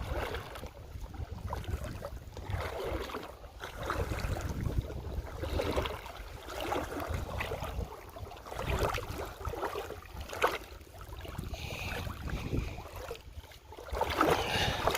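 River water sloshing and splashing around legs wading knee-deep in a shallow river, in uneven surges every second or two, with low wind rumble on the microphone.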